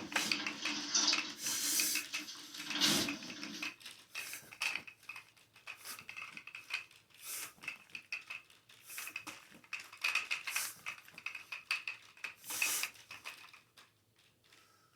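Irregular clinks, clicks and knocks of small hard objects being handled, denser and louder for the first few seconds, then thinning out and fading near the end.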